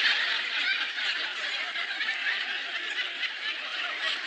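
Studio audience laughing, a big laugh that peaks at the start and slowly tapers off.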